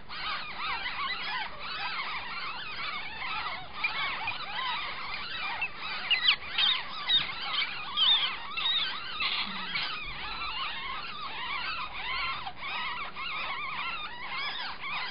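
Nine-day-old ferret kits squeaking without a break, many thin high squeaks overlapping, with a few louder ones about six to eight seconds in.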